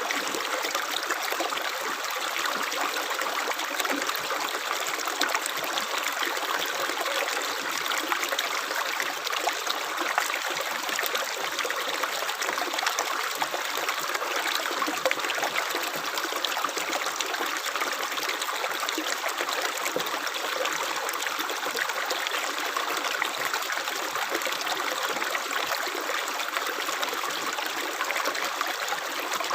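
Running water flowing and trickling steadily, like a small stream, with a fine splashing texture and little low rumble.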